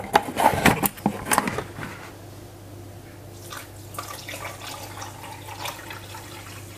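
A few clinks and knocks in the first second and a half, then water poured from a bottle onto sugar in a stainless steel pot, a faint splashing that starts about three and a half seconds in.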